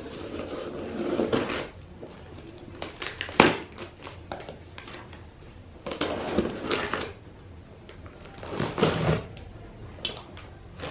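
Packing tape on a cardboard shipping box being slit and pulled open, in several short scraping, tearing bursts with one sharp snap about three and a half seconds in, and cardboard rustling.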